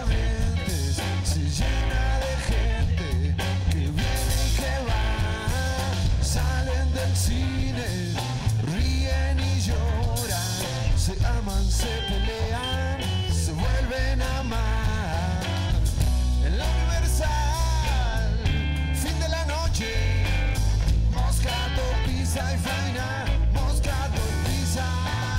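Live rock band playing an instrumental passage on electric bass and two electric guitars, with a lead guitar line whose notes bend up and down over a steady bass.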